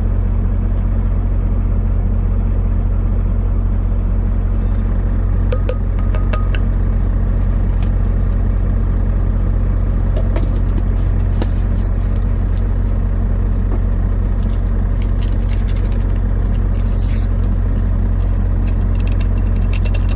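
Steady low rumble of a semi-truck's engine and road noise inside the moving cab. Scattered light clicks and rustles come in from about five seconds in as coffee powder is spooned into a tumbler and a sweetener packet is handled.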